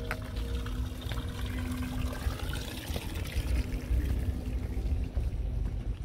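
Water trickling and splashing from the spout of a stone street drinking fountain into its basin. It is loudest from about one to four seconds in and fades after that, over a low rumble.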